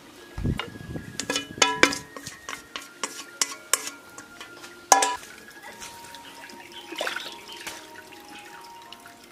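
Chopsticks clicking and scraping against a porcelain plate while tossing a dressed Houttuynia cordata salad, with one loud clack about five seconds in. Water splashing in a tub follows near the end.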